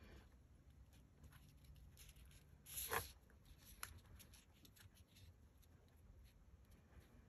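Near silence with faint rustles and light taps of paper pieces being handled and pressed down on a cutting mat, and one brief louder swish about three seconds in.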